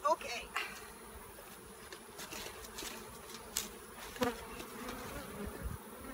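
Honeybees buzzing around their hive in a steady hum. A few times a single bee passes close by with a buzz that bends up and down in pitch.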